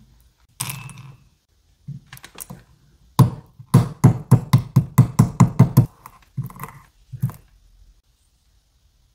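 Whole almonds being pounded with a wooden pestle in a ceramic bowl: a quick even run of about ten strikes, roughly four a second, with a few scattered knocks before and after as the nuts crack into small pieces.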